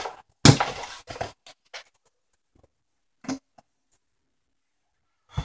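Cardboard shipping box being handled and opened: a loud scraping rustle about half a second in, a few shorter scrapes right after it, then a couple of faint knocks and rubs around three to four seconds in.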